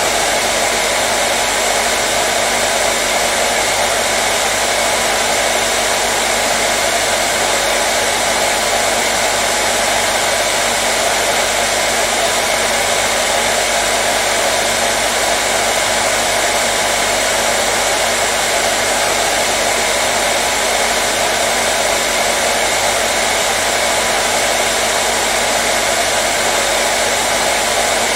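Hairdryer running steadily: an even, unchanging rush of blown air with a faint motor hum, played as soothing white noise for colicky babies.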